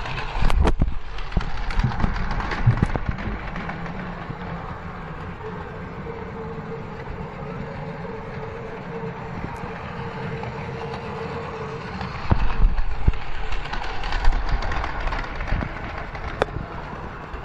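Battery-powered toy train, a model of the Nanpu limited express, running on plastic toy track: a steady small-motor hum and whine with the rattle of its cars over the track. Sharp clicks about half a second in and a louder rattling stretch later on as it passes close.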